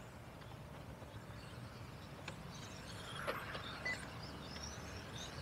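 Electric 1/10 RC touring cars with 17.5-turn brushless motors approaching: thin, high motor whines rising and falling with the throttle, with a few sharp ticks. They start about two seconds in and grow louder towards the end, over a low steady background rumble.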